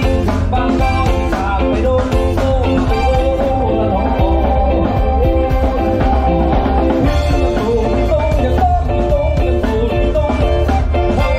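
Live band playing a song on electric guitar, bass and drum kit with a steady beat, a gliding melodic lead line running over the backing.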